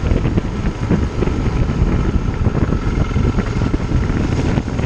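Wind rushing over the microphone of a motorcycle-mounted camera while riding, with the KTM 640 Adventure's single-cylinder engine running underneath as a steady rumble.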